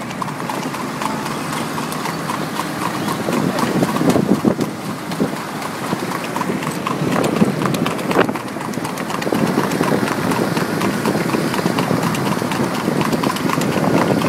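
A horse's hooves clip-clopping on a paved road as it pulls a two-wheeled cart, a run of sharp hoofbeats over road noise.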